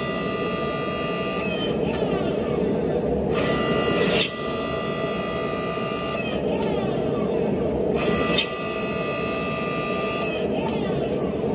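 Mini 5-ton log splitter converted to a forging press, its electric motor and hydraulic pump running, with a whine that comes and goes as the ram cycles. A sharp clunk comes about four seconds in and again about eight seconds in.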